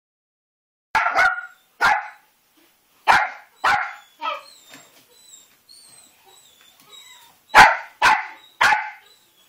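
Young Yorkshire terrier barking: short, sharp yaps in groups of two or three, about nine in all, with a pause of a couple of seconds near the middle.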